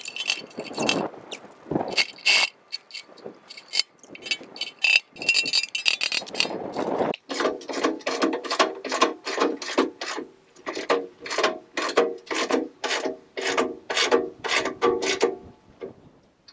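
Metal clinking for the first few seconds, then a socket ratchet wrench cranking steadily, about three clicks a second, as self-locking nuts are run down on the tooth bar's mounting bolts. The ratcheting stops shortly before the end.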